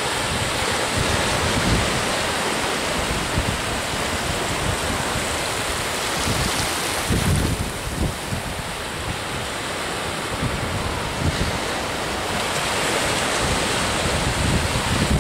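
Small ocean waves breaking and washing through shallow surf, a steady rushing hiss, with wind buffeting the microphone in low rumbling gusts.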